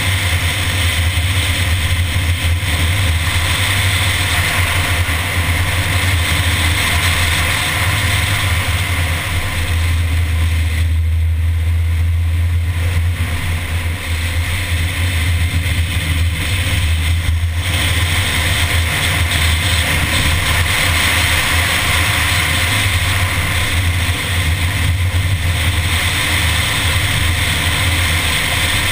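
A Mini car driving at speed: steady engine and wind noise on the bonnet-mounted camera. The higher hiss eases off for several seconds in the middle.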